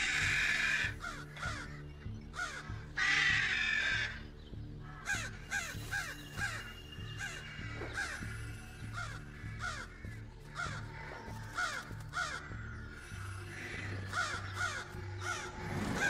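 A group of American crows scolding: loud harsh rasping caws about a second in and again after three seconds, then many short overlapping caws. This is their mobbing alarm at a person wearing the mask they have learned means danger. A steady music bed runs underneath.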